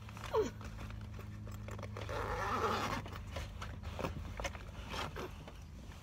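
A hairbrush drawn through hair: scratchy brushing strokes, the longest and loudest about two seconds in, with small knocks and rustles of handling.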